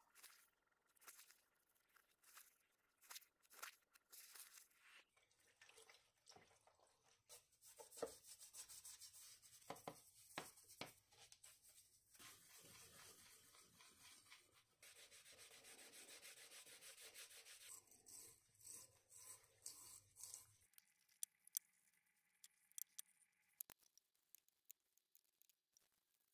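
Faint rubbing and rustling as gloved hands wipe and brush greasy dividing-head parts clean, with a stretch of steady scrubbing in the middle and small metal clicks and taps near the end.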